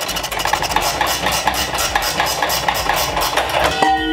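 Ratchet wrench clicking rapidly and evenly as it backs out the intercooler's mounting bolts. Near the end the metal rings out with a clink as the aluminium intercooler comes free.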